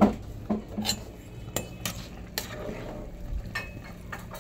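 Metal spoon stirring in a metal cooking pot, clinking and knocking against the pot several times at irregular intervals, the loudest knock right at the start.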